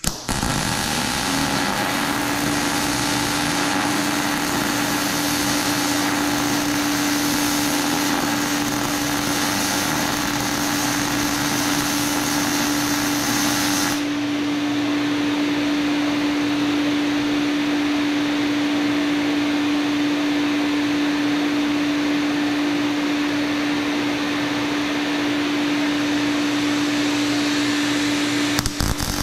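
Electric arc welding crackles and hisses for about the first half, then the arc stops. Under it, the fan of a Lincoln Electric mini fume extractor runs with a steady hum. The fan comes up about a second after the arc is struck, because the extractor switches on by itself when it senses welding current in the torch cable.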